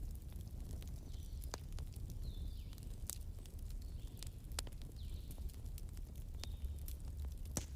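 Bonfire burning with a low steady rumble and irregular sharp crackles and pops of burning wood.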